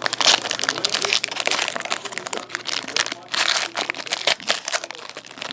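Plastic packaging of a box of trading cards crinkling and rustling as it is torn open and the cards are handled: a dense, irregular crackle.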